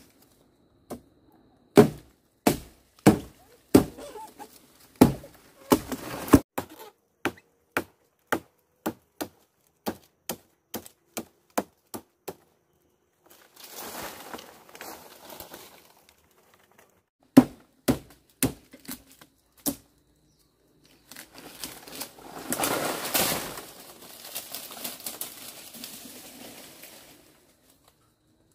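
A series of sharp knocks or chops, thick and irregular at first, then lighter clicks about two a second, then a few more loud knocks. Twice they give way to several seconds of rustling or crumpling, the second stretch louder and longer.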